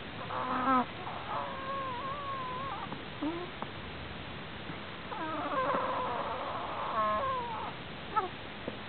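Pet prairie dog snoring: a string of short, squeaky whistles that glide and waver in pitch, about half a dozen of them, with a longer, rougher warble about five seconds in. The owner says this strange snoring is not caused by an odontoma.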